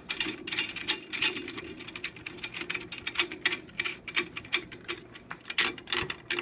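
Metal snare drum tension rods being spun into their lugs by hand for finger-tightening: a rapid, irregular run of small metallic clicks and ticks.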